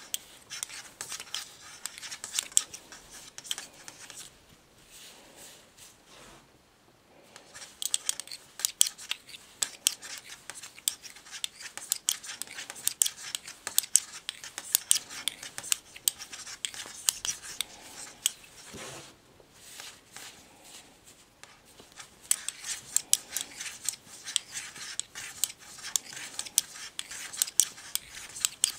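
Knitting needles clicking and scraping against each other and the yarn in quick, irregular ticks as stitches are knitted, with a lull about five seconds in and another around nineteen seconds.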